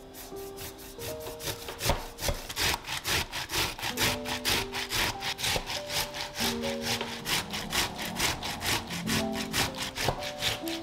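A whole tomato being grated by hand on a stainless steel cone grater: quick, regular rasping strokes as the flesh is scraped through the holes.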